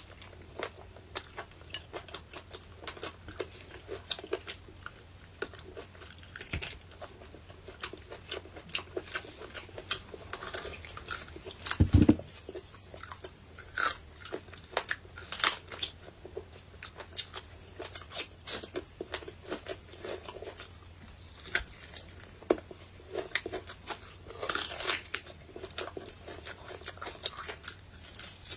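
Close-up eating sounds of someone biting and chewing braised beef on the bone: a steady run of wet mouth clicks, smacks and bites. There is one louder low thump about halfway through.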